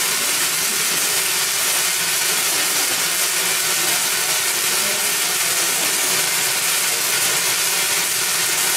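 Spark-gap Tesla coil, driven by a 10,000-volt transformer, running and throwing sparks. It makes a loud, steady, harsh hiss as the spark gap fires and the coil discharges.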